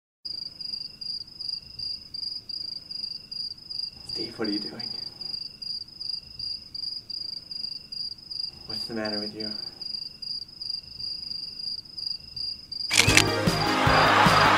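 Cricket chirping, a steady high-pitched trill in even pulses, the comedy cue for an awkward silence. Two short voice sounds come in at about four and nine seconds, and loud music starts near the end.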